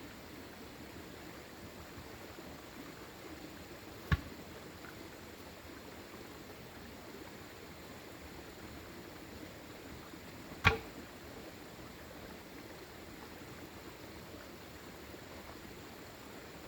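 Steady hiss of rain, broken twice by a single sharp knock with a brief ring, the two about six seconds apart.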